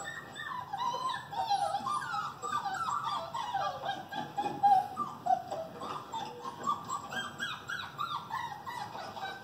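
A dog whimpering and whining in a quick run of short, high, rising and falling cries, loudest about halfway through.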